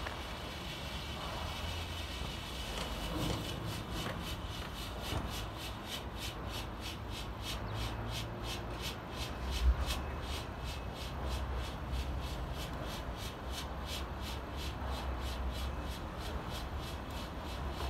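Enola Gaye EG25 micro smoke grenade burning with a faint, steady hiss, under a low outdoor rumble like wind on the microphone. A single knock about ten seconds in.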